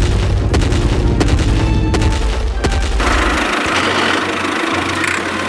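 Deep rumble with several sharp knocks, lasting about three and a half seconds, then giving way to a softer, steadier noise.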